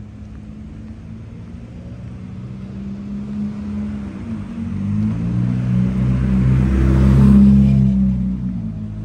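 A motor vehicle's engine running on the street, growing louder as it approaches, loudest about seven seconds in as it passes close, then fading.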